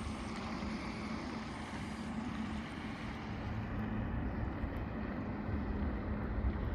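Outboard motor of a small inflatable boat running steadily at speed out on the water, heard from a distance as a steady drone that grows a little louder near the end, with wind rumbling on the microphone.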